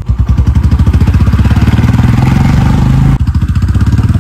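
Motorcycle exhaust under way on the road, a loud, steady, rapid beat heard from the rider's seat, dipping briefly about three seconds in.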